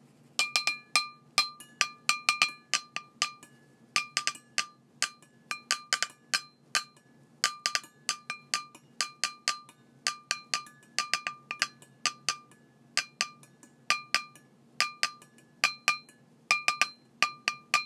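Outro music made of short, bright clinking percussion notes that ring briefly, several a second in uneven clusters, over a faint steady low hum.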